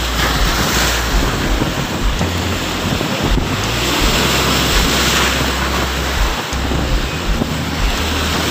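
Rough sea waves breaking and washing over the boulders of a rock seawall, the hiss surging a few times as each wave comes in, with wind buffeting the microphone.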